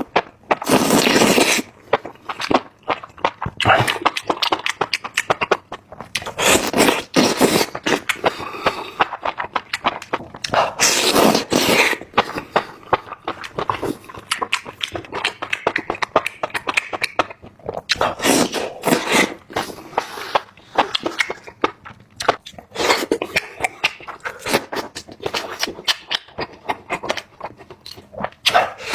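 Close-miked eating sounds: bursts of crunching and chewing, thick with small crackling clicks and mouth noises, swelling louder every few seconds.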